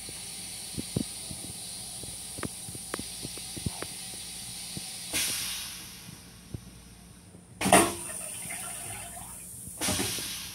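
Flush cycle of a Metro-North M7 railcar's stainless-steel toilet: a steady hiss as the bowl drains, a stronger hissing surge about halfway through that fades, then a short loud whoosh, the loudest part, and another brief whoosh near the end.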